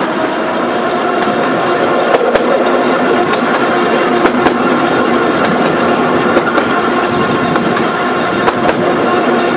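Narrow-gauge electric tram running along the track: a steady hum of motor and gearing over the rumble of wheels on the rails, with a few sharp clicks.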